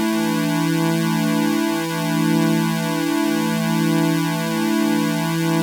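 Vocoder synthesizer sound effect: dense held tones that step to new pitches about every second and a half, with no break.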